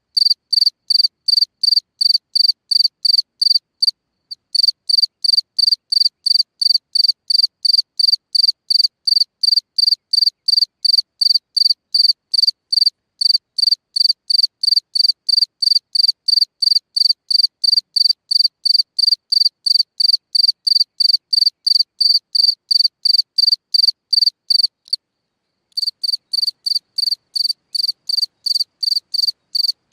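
A black cricket chirping at its burrow in the ground, a loud high-pitched chirp repeated evenly about three times a second. It breaks off briefly about four seconds in and pauses for about a second near the end before going on.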